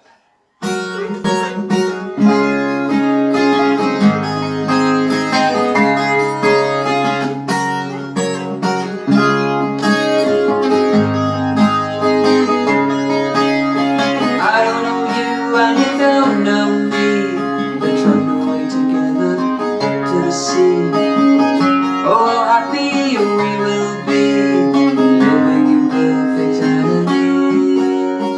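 Acoustic guitar played solo, chords ringing with plucked and strummed notes, starting about half a second in.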